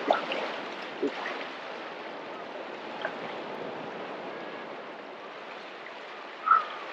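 Small sea waves washing against harbour rock armour, a steady hiss of water, with a single short bird call about six and a half seconds in.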